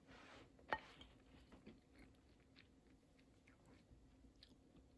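Faint crunching and crackling of a crusty-bread sandwich, with one sharp click about three-quarters of a second in and scattered small crackles after.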